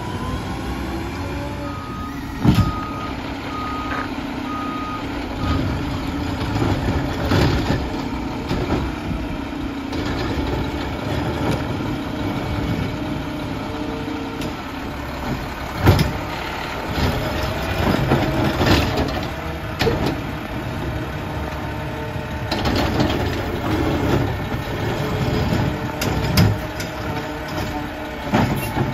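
Mack LR garbage truck with a McNeilus ZR automated side-loader body running while it works curbside carts, with sharp knocks and bangs now and then. A backup alarm beeps about four times near the start.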